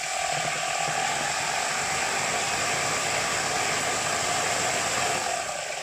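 Homemade 3D-printed centrifugal water pump, driven by a 24 V DC drill motor run on 12 V, running steadily while held submerged in a tub. A steady motor whine sits over the rush and splash of the water it churns.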